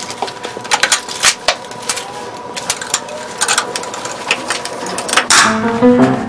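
Rapid, irregular clicking and clattering. Plucked-string music comes in near the end.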